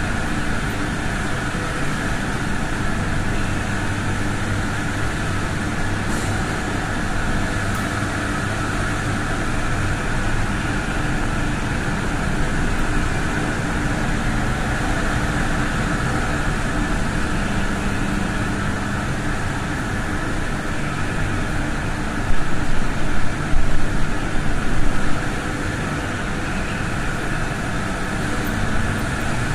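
Steady, loud drone and hum of running generating units in the machine hall of a pumped-storage hydroelectric plant. A few seconds of louder, uneven noise rise over it about three-quarters of the way through.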